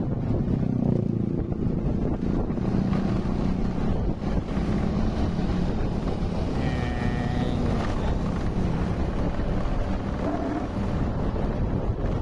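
Wind rushing over the microphone with the steady rumble of a moving vehicle on the road.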